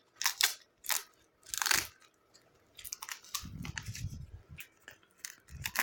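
Crinkly rustling of plastic packaging and paper being handled and pulled apart: a few short, sharp crinkles, then a longer, softer stretch of rustling with small clicks.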